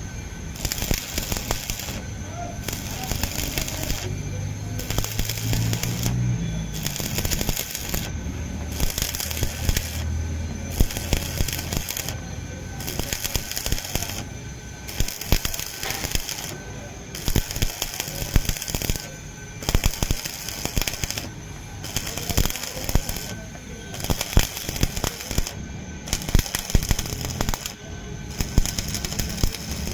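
Arc (stick) welding on a truck chassis rail: the arc crackles and sputters in runs of a second or two, breaking off briefly between them.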